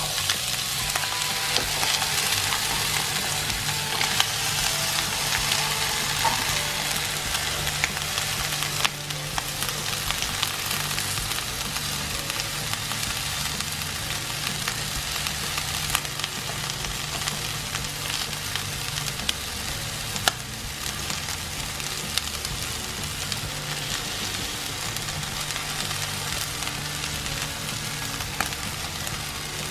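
Oil sizzling steadily in a hot wok as bean sprouts, leafy greens, egg and meat stir-fry, with a few sharp clicks of the wooden spatula against the wok. The sizzle is loudest in the first several seconds.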